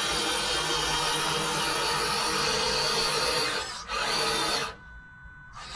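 RC crawler's electric motor and gearbox whining under drive, mixed with a noisy grinding. It dips briefly just before four seconds in, cuts out about a second later, and starts again faintly near the end.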